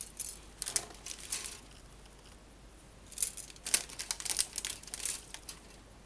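Plastic model-kit sprues being handled and shuffled in their cardboard box, with the plastic rustling and clicking against itself in two bouts, one at the start and a longer one from about three seconds in.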